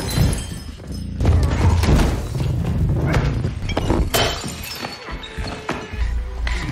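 Film fight sound effects: blows and several sharp crashes with breaking glass as two men brawl, over low, heavy score music.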